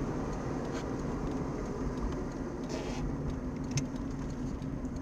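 Steady in-cabin noise of a car driving on wet asphalt: a low engine hum under the hiss of tyres on the wet road, with a few faint ticks.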